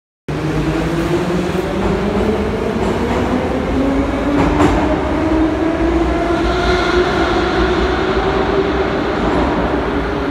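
81-540.2 metro train arriving at an underground station platform: a steady running rumble with a whine that rises in pitch over the first few seconds, then holds.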